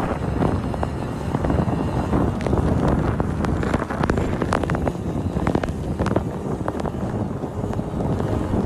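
Heavy rain with many drops striking close to the microphone, over a steady low rumble of wind and road noise from a vehicle.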